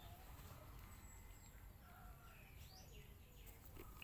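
Near silence: faint outdoor ambience with a few faint, short high chirps.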